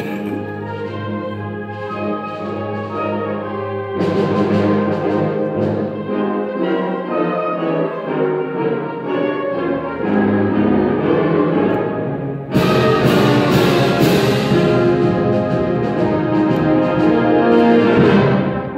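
Symphonic wind band playing sustained brass and woodwind chords. It grows louder about four seconds in, then comes in suddenly much louder with the full band about twelve seconds in.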